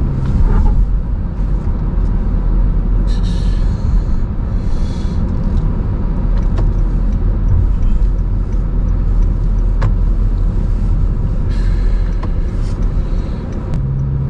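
Road noise heard from inside a moving car: a steady low rumble of engine and tyres, with two stretches of louder hiss, about three seconds in and again near the end.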